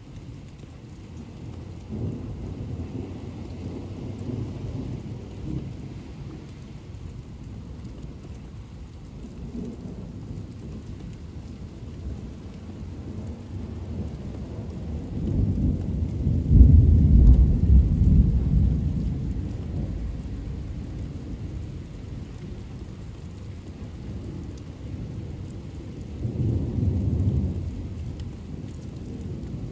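Thunderstorm: low rolling thunder over steady rain. The loudest peal swells up about halfway through and rumbles on for a few seconds, and a shorter rumble comes near the end.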